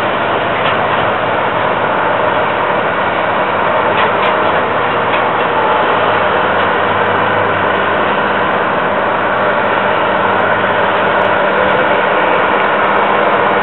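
Steady din of heavy earth-moving machinery and trucks working on a hillside construction site, a continuous engine drone with no breaks.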